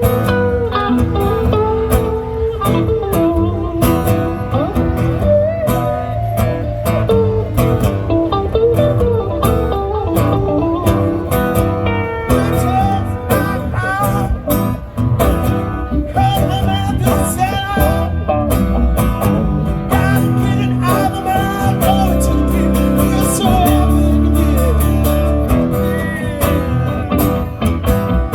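Live rock music led by guitar, with a wavering melody line over a steady bass.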